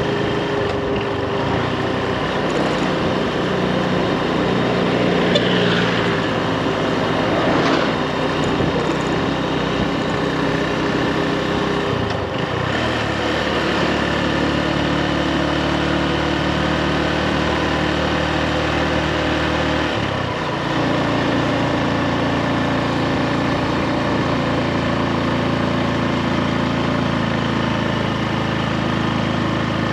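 Motorbike engine running steadily while riding, over wind and road noise; its pitch steps to a new steady note about twelve seconds in and again about twenty seconds in.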